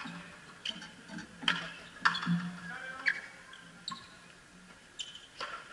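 Frontenis balls struck by racquets and hitting the fronton's wall and floor: an irregular run of sharp, short knocks, about seven of them, some ringing briefly after the hit.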